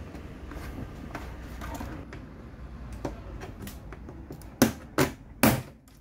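Plastic casing of an HP all-in-one PC being handled, with light scattered clicks and rattles, then three sharp loud clicks about half a second apart near the end.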